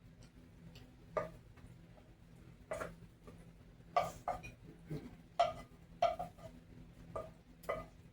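Cutlery clicking and clinking against plates during a meal: a dozen or so light, irregular taps, more frequent in the second half.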